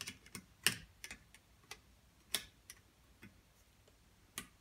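Irregular sharp metallic clicks and taps, about a dozen, two of them louder, as a tool picks at sticky valve collets on a compressed valve spring in a 1969 MGB cylinder head.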